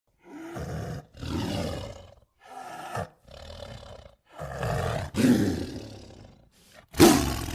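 Made-up Gorgosaurus dinosaur sound effects: a string of about seven rough roars and growls, each under a second and a half long, the loudest a sharp roar near the end.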